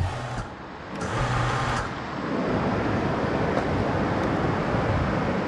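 Steady outdoor rumble and hiss, with a brief thump at the very start.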